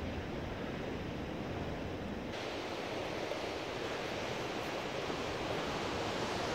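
Steady rushing noise of sea surf mixed with wind on the microphone. A low wind rumble eases off about two seconds in, leaving the surf more even.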